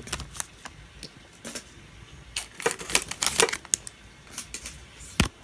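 Pokémon trading cards being handled and sorted by hand: scattered light clicks and rustles, with one sharper click about five seconds in.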